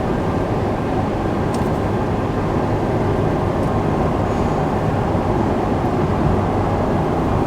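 Steady road and engine noise inside a moving car's cabin, an even rumble with no change through the stretch.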